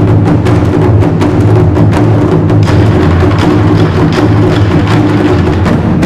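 Ensemble of red Chinese barrel drums played together in a fast, dense passage: a continuous low rumble with many sharp strokes on top, loud throughout.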